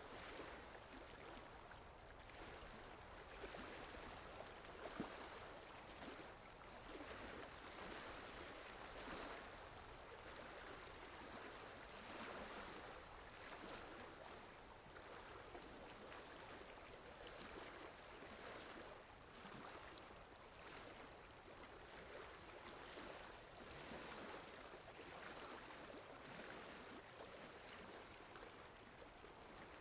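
Steady rainfall, a soft even patter that swells and eases gently, with one brief sharper drip about five seconds in.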